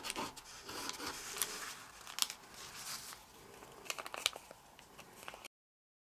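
Folded origami paper being pressed flat and handled: soft rustling and crinkling with a few sharp crackles of creasing paper, breaking off to complete silence about five and a half seconds in.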